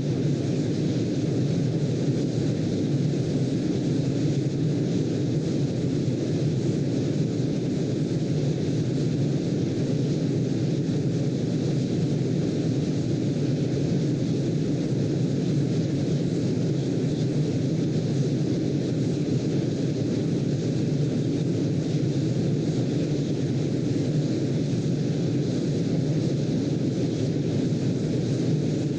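Steady, deep rushing noise that never swells or breaks: a brown-noise style sleep-aid noise bed.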